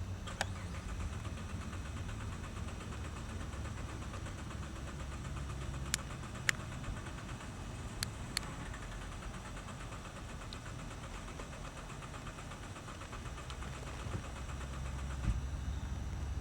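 Car engine idling steadily, with a few sharp clicks about halfway through.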